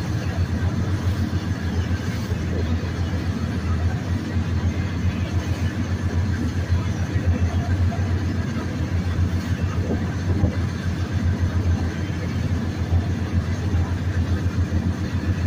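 Lobster boat's engine running steadily, a low, fast, even throb.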